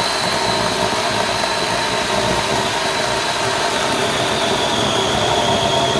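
DeWalt 20V XR 12-inch brushless battery chainsaw running at full speed with a steady high whine, its chain cutting through a seasoned cherry log.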